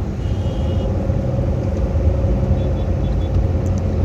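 Car cabin noise while driving: a steady low rumble of engine and tyres on the road, heard from inside the car, with a faint steady hum above it.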